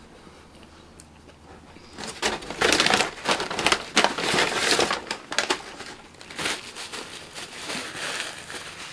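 Paper food wrapper crinkling and being crushed in the hands, beginning about two seconds in in a dense run of irregular crackles, then softer and sparser toward the end.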